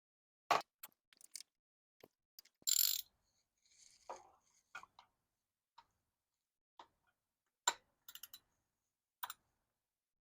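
Scattered metallic clicks and clinks of a ratchet and spark plug socket working on a freshly fitted spark plug, with a brief scrape about three seconds in.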